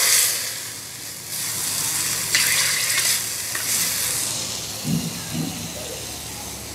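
Liquid pouring into an aluminium pot, fading out in the first half second, then a ladle stirring the kadhi in the pot in a few short bursts.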